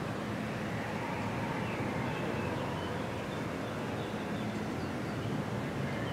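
Steady low rumble of street traffic and idling engines, with a few faint short chirps above it.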